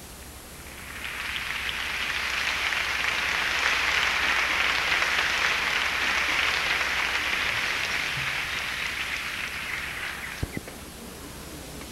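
Theatre audience applauding, swelling in about a second in and dying away near the end, with a single sharp click shortly before it fades out.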